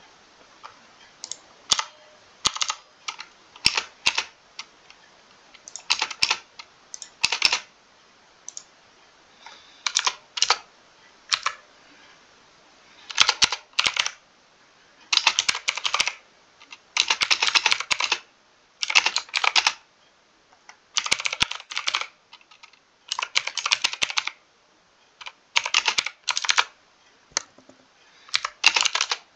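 Mechanical keyboard typing: bursts of rapid keystrokes lasting a second or two, separated by short pauses, with a few single key clicks in between.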